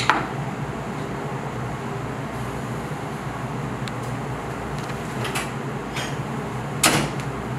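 Steady hum of a commercial kitchen's ventilation, with a few short sharp knocks, the loudest near the end.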